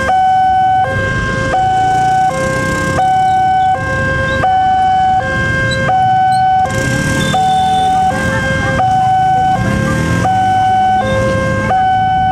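Railway level-crossing warning alarm sounding as the boom barriers come down. It is an electronic two-tone signal that switches between a lower and a higher tone about every three-quarters of a second. Motorcycle engines run underneath as riders pass over the crossing.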